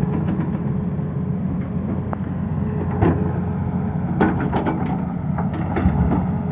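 Tata Hitachi excavator's diesel engine running steadily under load, with several sharp knocks from the working machine.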